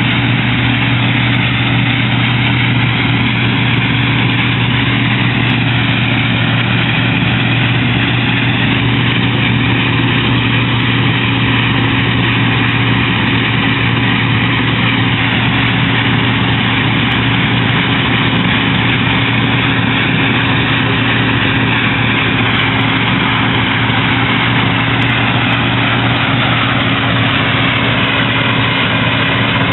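Claas Dominator 80 combine harvester running steadily: a constant low engine drone with a higher whine that slowly wavers in pitch.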